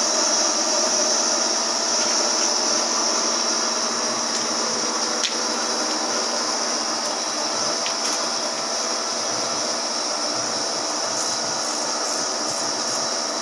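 Steady hum of machine-shop machinery around a CNC lathe, with a constant high hiss and a few faint ticks near the end.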